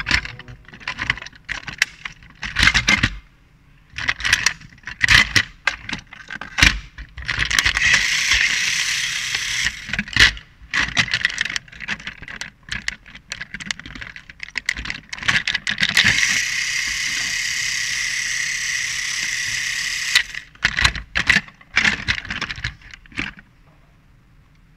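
Battery-powered Tomy Gordon toy engines clacking and knocking as they are handled and set down, with two stretches of a small toy motor whirring steadily.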